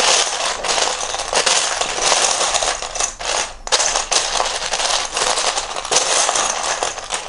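Loose plastic Lego bricks clattering as a hand rummages through a pile of them, searching for pieces. The dense rattle starts suddenly and dies away near the end.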